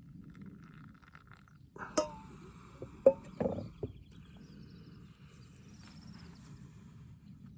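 Faint open-air background with scattered bird chirps. Partway through come a sharp click, a louder knock and a few short, sudden sounds.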